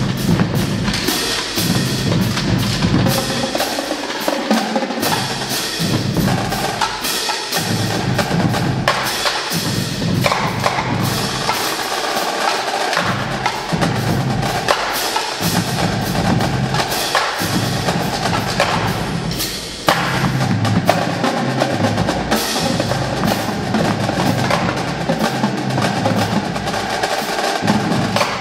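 Drumline of snare drums, tenor drums, five tuned bass drums and hand cymbals playing continuously in fast, dense stick patterns. A short lull about two-thirds of the way through is broken by a loud accented hit.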